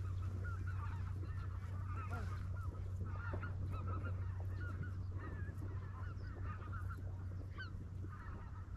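A large flock of geese calling, many short overlapping honks and yelps going on without a break, over a steady low hum.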